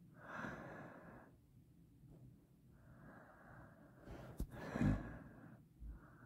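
A person breathing, three slow breaths each about a second long, with a sharp click and a low thump during the third.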